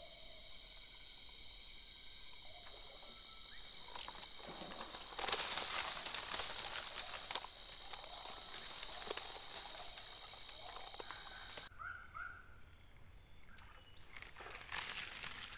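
Insects buzzing steadily in several high, held tones that stop about twelve seconds in. Two short rushes of noise break in, one about five seconds in and one near the end.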